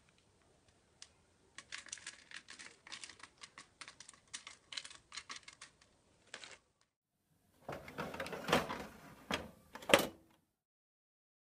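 Sliced almonds scattered by hand over crushed dry instant ramen on a metal baking tray: a quick run of light clicks and ticks for several seconds. Then a toaster oven's door is handled, with a louder clatter ending in a sharp clack near the end.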